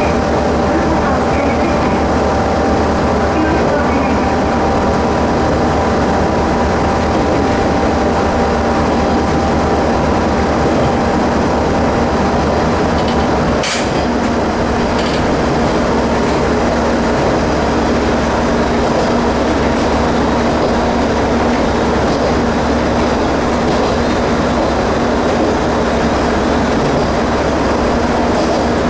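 Ex-JNR KiHa 30 series diesel railcar running along the line, heard from inside its driver's cab: a steady diesel drone mixed with wheel and rail noise. A single sharp click comes about fourteen seconds in, and the pitch of the hum shifts around it.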